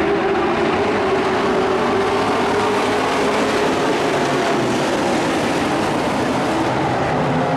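A pack of dirt-track stock race trucks running at speed, several engines droning together, their note sagging and climbing again as they go through the turns.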